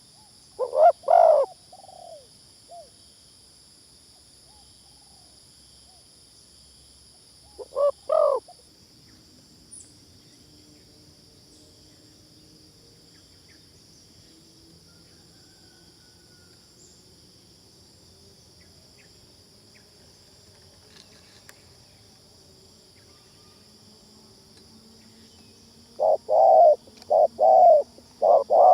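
Spotted dove cooing: a couple of coos about a second in, another pair near eight seconds, then a quick run of repeated coos near the end, over a steady high hiss.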